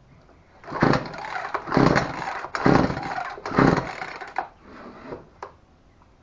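Poulan Pro PR4218 two-stroke chainsaw being pull-started on full choke: four quick pulls of the recoil starter about a second apart, the engine cranking over without catching and running.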